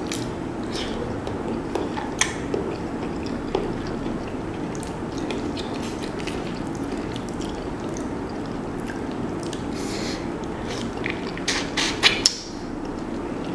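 Close-up wet eating sounds: sauce-coated boiled shrimp being sucked, bitten and chewed by hand, with scattered smacks and squelches and a cluster of sharper ones near the end, over a steady low background hum.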